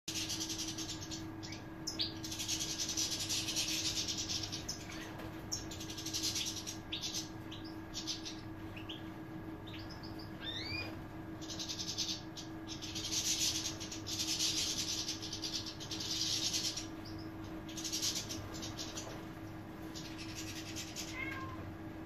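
A flock of European goldfinches twittering and calling, in dense high bursts of a second or two, with a few short rising chirps between; a steady low hum runs underneath.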